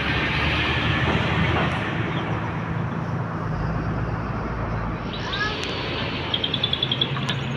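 Bus engines running at idle, a steady low hum under a wash of noise. From about five seconds in, birds chirp with short falling calls and a quick run of high notes.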